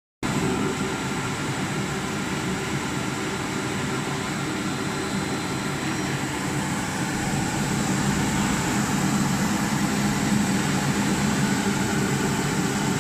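One-colour flexo varnish label printing machine running with a steady mechanical hum.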